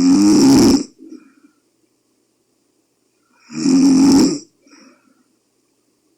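Loud snoring from a sleeping person: two snores, each under a second, about three and a half seconds apart, each followed by a faint short sound.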